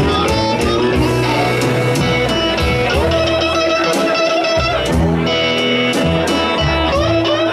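Live blues-rock band playing an instrumental passage: electric guitar over bass and a steady drum beat.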